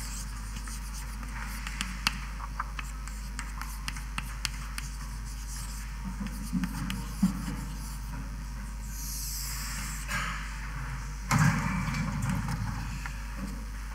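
Steady low electrical hum with scattered light taps and clicks, a brief high hiss about nine seconds in and a louder short scuffing noise about eleven seconds in.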